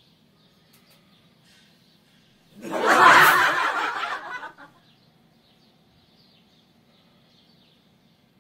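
A burst of laughter, a snickering giggle, starting about two and a half seconds in and lasting about two seconds, over faint background noise.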